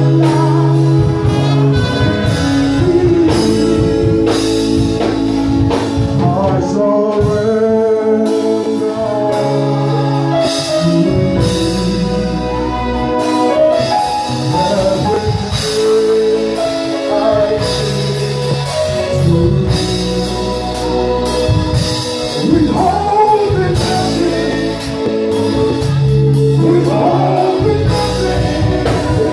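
Live gospel song: a man sings lead into a microphone, joined by a woman's backing vocal, over a band with bass and drums.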